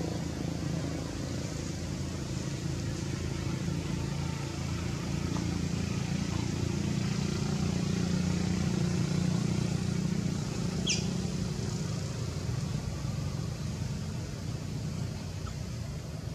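Steady low hum of a running engine, swelling slightly in the middle, with one short high falling chirp about eleven seconds in.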